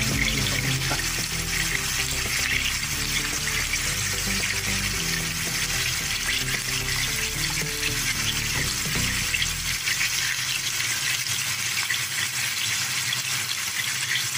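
Chicken pieces with onion and garlic frying in a stainless steel pan, a steady sizzle. Background music plays over it and stops about ten seconds in.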